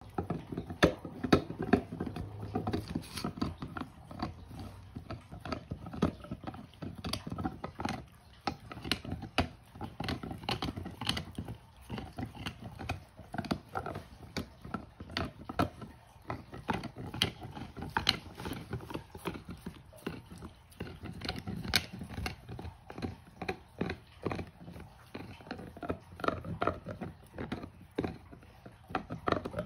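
A Doberman gnawing on a hard wishbone-shaped chew toy: irregular clicks of teeth on the toy, a few a second.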